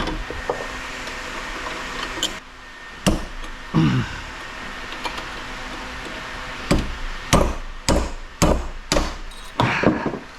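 Hammer blows on brass industrial sprinkler heads, knocking the brass free from the stainless: two separate strikes a few seconds in, then a quick run of about six blows roughly half a second apart in the second half.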